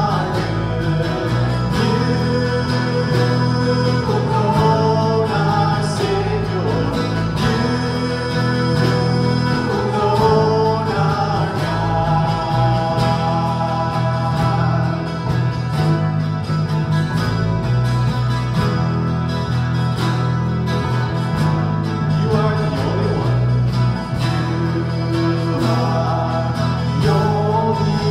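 Worship band playing a song: voices singing together over strummed acoustic guitar and electric bass guitar, with a steady beat.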